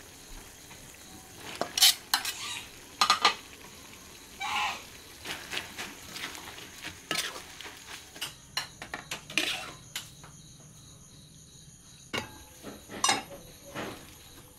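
Metal spatula scraping and knocking against a pan while stir-frying, over a soft sizzle. The scrapes come as short irregular strokes, the loudest about two and three seconds in.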